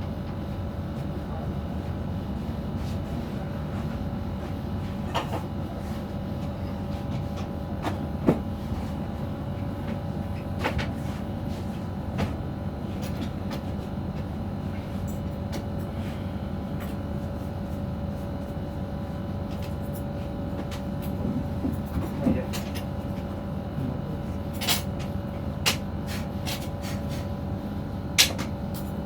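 Head massage: a scattering of sharp taps and clicks from hands and comb working on the head, over a steady hum.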